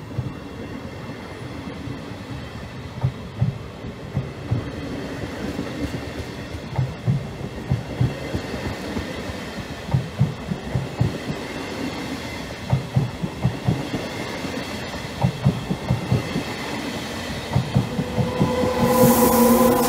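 Passenger coaches of a regional train rolling past a station platform: a steady rumble with clusters of wheel clacks over the rail joints. Near the end a louder steady hum and hiss come in.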